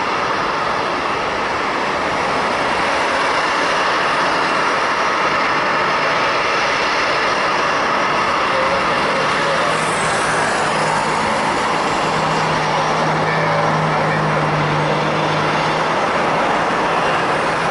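Boeing 737-800's CFM56-7B jet engines at takeoff power, a steady loud rush, with a faint low hum rising out of it about twelve seconds in.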